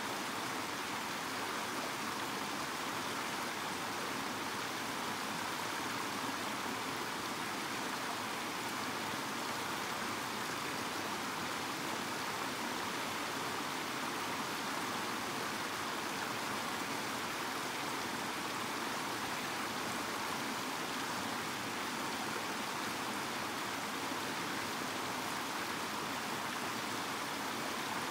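Shallow, rocky mountain stream running over stones: a steady, even rush of water.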